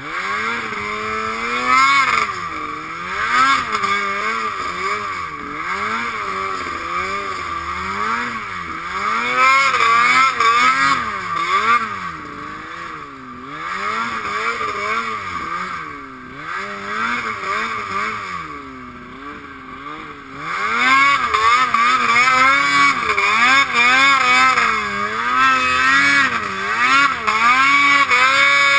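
Snowmobile engine revving up and down constantly as the sled is ridden through deep powder, heard from the rider's helmet. It drops back for a moment about two-thirds of the way through, then runs louder and higher to the end.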